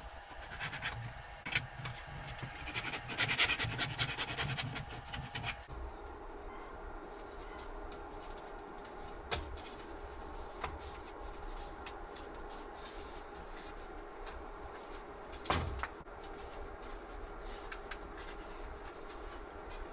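Hand tool scraping and rasping on wood in quick strokes for about five seconds, then a few light knocks of wooden pieces being handled, with one sharper knock about two-thirds of the way through.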